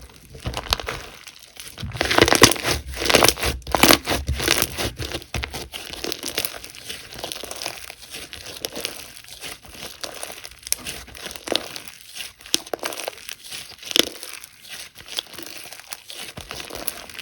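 Slime being squeezed and worked by hand, a dense run of small clicks and pops, loudest and busiest about two to five seconds in.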